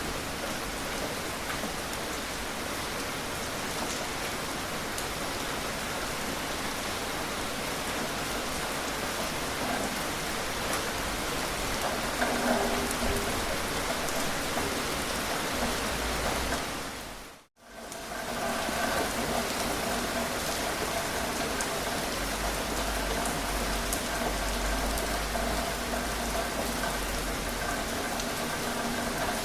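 Steady rain falling, an even hiss of drops. About two-thirds of the way through, the sound dips briefly to silence and comes straight back.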